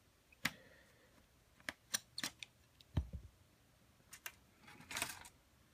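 Scattered light clicks and taps of a small screwdriver and a laptop's plastic base cover being handled as the last screw comes out and the cover is lifted off, with a duller knock about three seconds in and a short scraping rustle near the end.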